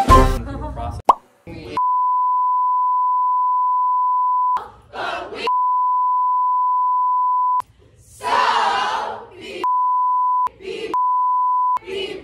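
A steady high-pitched censor bleep tone laid over a group's voices in long stretches. In the gaps between the beeps come short bursts of the group shouting and cheering, the longest about eight seconds in. Voices and music fill the first second.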